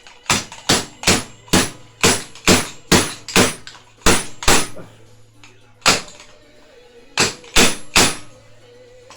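Fork seal driver struck over and over to drive a new oil seal into a Yamaha WR450F fork leg: about fourteen sharp metallic hits, mostly two to three a second, with a couple of short pauses.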